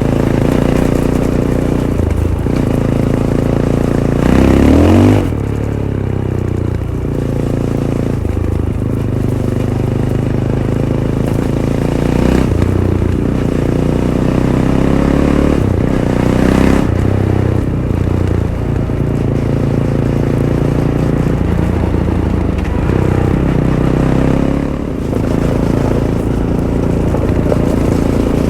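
Fantic Caballero 500's single-cylinder engine breathing through its stock Arrow exhaust, ridden off-road with the revs rising and falling. The revs climb sharply about four seconds in and drop off just after five seconds, with more rises around twelve and sixteen seconds.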